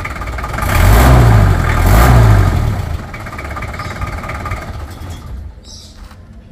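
A car engine revving twice, about a second apart, then dropping back and fading.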